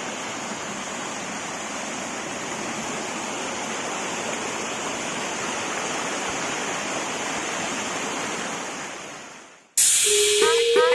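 Waterfall: a steady, even rush of falling water that fades out about nine seconds in. Louder music with a steady tune cuts in near the end.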